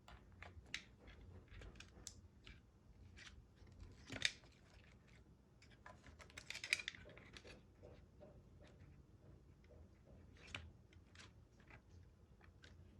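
Faint, scattered clicks and taps of small hard parts and tools being handled, with a sharper click about four seconds in and a brief flurry of clicking and rustling around seven seconds.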